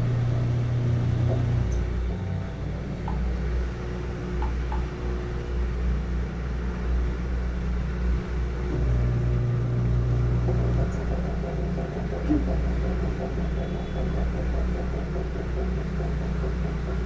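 Samsung washing machine running with a steady low rumble, its motor hum switching on for a couple of seconds at a time, near the start and again about nine seconds in. This is the strange noise the machine is making.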